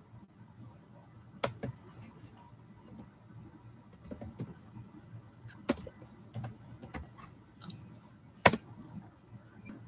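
Irregular typing and clicking on a computer keyboard: a dozen or so scattered taps of uneven strength, the loudest about eight and a half seconds in.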